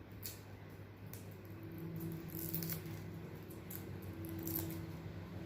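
Faint scattered clicks and light rustling of hands handling medical plaster tape, over a faint low hum.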